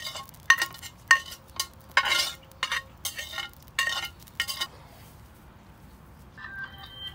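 Metal spatula scraping and knocking against a plate as rice is pushed off it into a steel pot, a run of ringing clinks at about two a second that stops about four and a half seconds in. Background music starts near the end.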